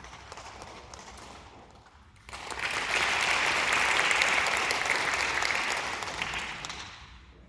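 Audience applauding, with scattered clapping at first, then swelling suddenly about two seconds in, holding, and fading away near the end.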